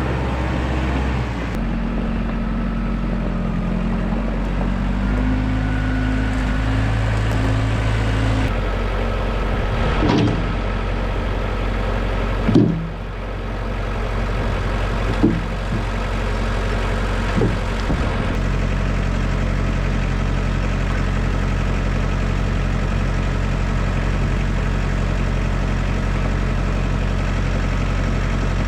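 Tractor engine running steadily, shifting speed a few times, with several short knocks in the middle.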